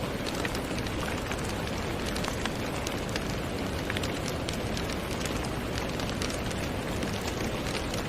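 Steady rain falling, a dense even hiss with many separate drops ticking through it.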